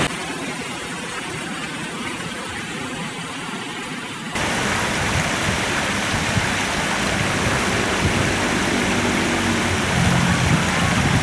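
Steady rush of flowing water from a small concrete weir spillway. It gets suddenly louder and fuller about four seconds in.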